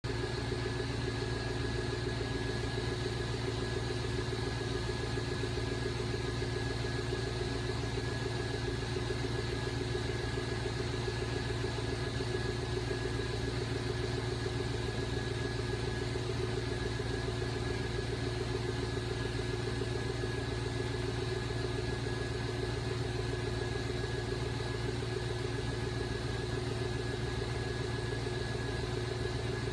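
Federal Signal TwinSonic lightbar's type 1 rotator motor running steadily as the lamps turn: an even mechanical hum with a faint higher whine.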